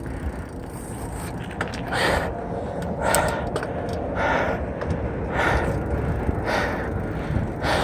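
A cyclist breathing hard while pedalling, a heavy breath about once a second, over a steady low rumble of wind and tyre noise.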